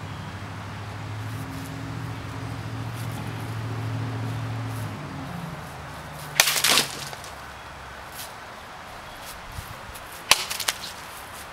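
An arming sword cutting through a rolled tatami mat twice: a sharp swishing slice about six seconds in and a crisper one about four seconds later, followed by a few small clicks. Before the cuts, a steady low hum runs and fades out.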